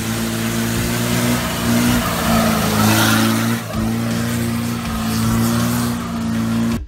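Small off-road 4x4's engine running at high, steady revs as it climbs a dirt trail. It swells louder, with a rush of tyre and engine noise, as it passes close about three seconds in. The sound cuts off abruptly just before the end.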